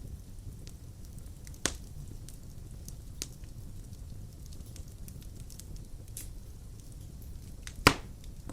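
Wood fire burning in a fireplace: a steady low rumble with scattered small crackles and two sharp pops, one about a second and a half in and a louder one near the end.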